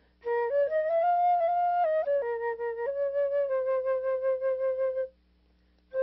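Solo flute playing a slow melody in long held notes that step up and back down, with a breath pause near the end.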